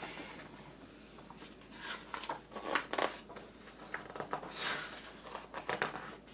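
Paper rustling and scraping in short irregular bursts, the sound of picture-book pages being handled and turned.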